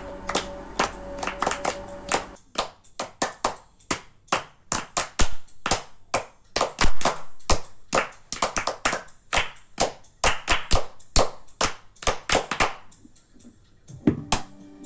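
Hands clapping a quick rhythm of sharp claps, several a second. Near the end, the plucked twang of a homemade rubber-band tissue-box guitar comes in.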